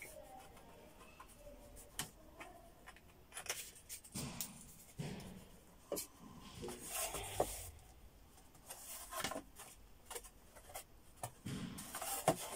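Thin laser-cut plywood panels being handled and fitted together by hand: scattered light wooden knocks and clicks with short scraping and rubbing of wood on wood and on the bench.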